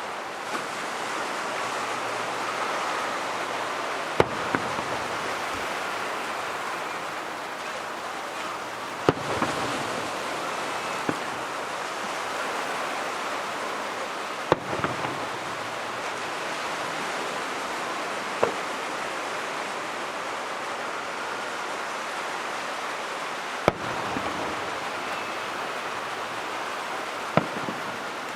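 Aerial fireworks going off: sharp bangs every few seconds, some followed closely by one or two smaller pops, over a steady rushing background noise.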